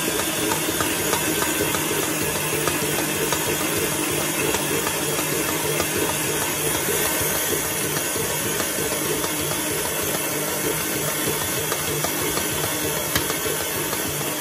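KitchenAid Heavy Duty stand mixer running steadily, its motor and dough hook kneading a stiff yeast dough.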